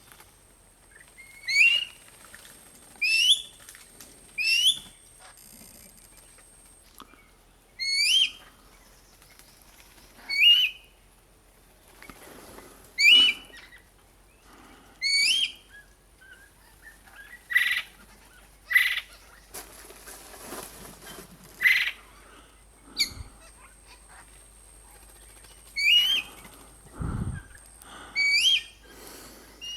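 A bird calling again and again with a short, rising whistled note every two to three seconds. A few sharper clicks come in the middle, and there is a low thump near the end.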